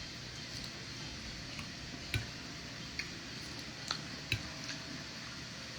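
A few scattered light clicks and taps of cutlery on a plate over low steady room noise.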